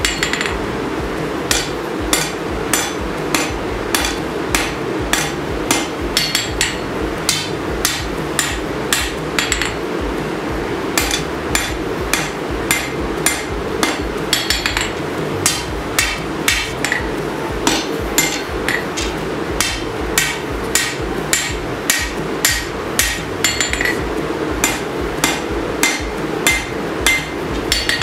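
Hand hammer forging hot 5160 steel on an anvil: a steady run of strikes, about two a second, each with a short ring, over a constant low hum.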